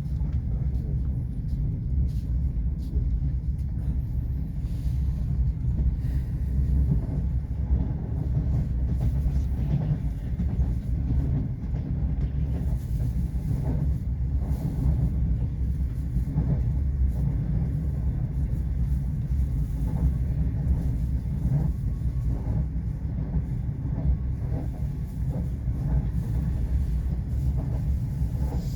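Passenger train running at speed, heard from inside the carriage: a steady low rumble with faint knocks of the wheels over the rail joints.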